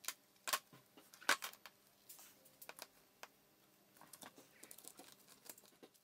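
Scissors snipping off soft, bendy resin drips: a few sharp, faint clicks in the first second and a half, then scattered lighter ticks as the resin pieces are handled.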